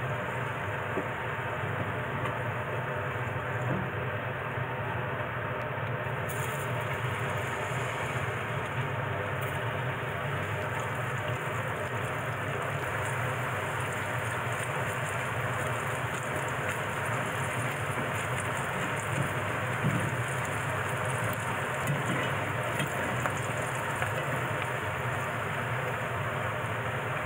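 Daikon radish sticks deep-frying in hot oil in a frying pan: a steady sizzle that turns hissier about six seconds in.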